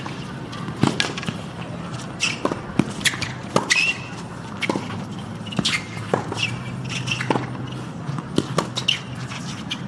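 Tennis rally on a hard court: sharp pops of racket strikes and ball bounces every second or so, with short shoe squeaks on the court surface.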